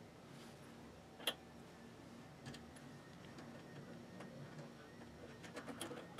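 Small metal clicks and taps of a bolt and nut being handled and fitted to a slotted metal pedal bar: one sharp click about a second in, a few faint ticks, then a quick run of clicks near the end.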